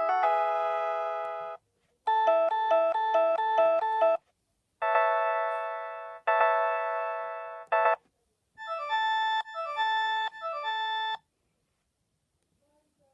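Sony Ericsson W395 mobile phone playing a ringtone: a keyboard-like melody in several short phrases with brief pauses between them, including a quick run of repeated notes early on and a broken-up, stepping figure later. It stops about eleven seconds in.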